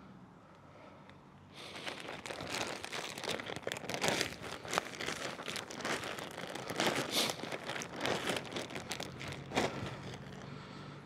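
Dense crinkling and rustling, starting about one and a half seconds in and going on until near the end, full of small crackles.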